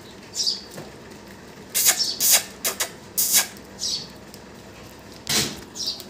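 A few short, high chirps from small birds, mixed with several sharp scratchy rustles and knocks from goats moving about in the shed.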